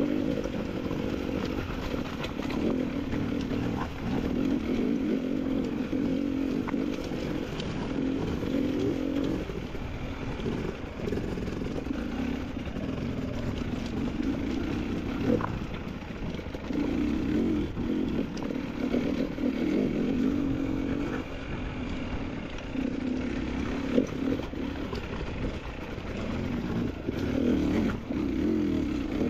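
Motorcycle engine under ride, the throttle opening and closing every few seconds as the bike picks its way over rough ground. A couple of sharp knocks are heard, one about halfway and one near the end.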